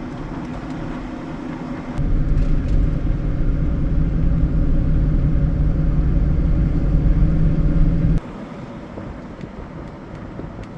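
Vehicle engine running with a steady low rumble. It gets louder about two seconds in and drops back abruptly near the end.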